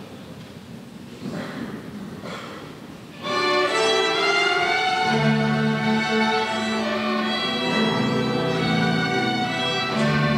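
Instrumental music led by bowed strings, with sustained chords, starts abruptly about three seconds in. Before it there is only a low murmur of room noise.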